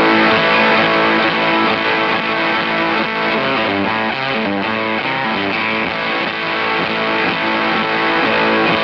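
Electric guitar played through a KingTone MiniFuzz v2 fuzz pedal in silicon mode, giving a thick, compressed fuzz tone over held notes and chords, with a quicker run of changing notes in the middle. The pedal's bias knob is turned to the left, which takes the fuzz slightly muffier.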